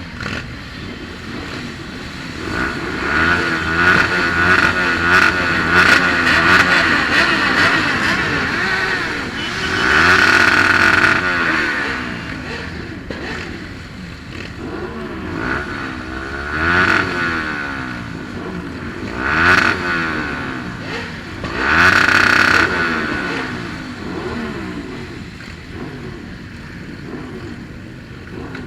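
Motorcycle engine running and revving, its pitch rising and falling over and over, with several louder swells.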